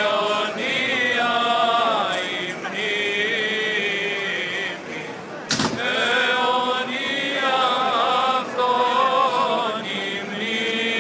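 Greek Orthodox Byzantine chant of the Epitaphios service: voices singing a slow, wavering, ornamented melody. There is one sharp click about halfway through, where the sound cuts.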